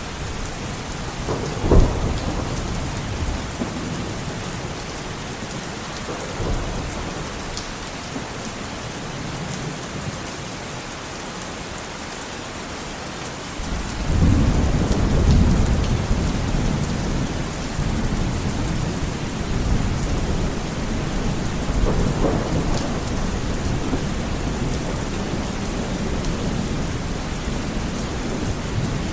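Heavy rain falling steadily with rolls of thunder: a sharp loud crack about two seconds in, and a long heavy rumble starting about halfway through.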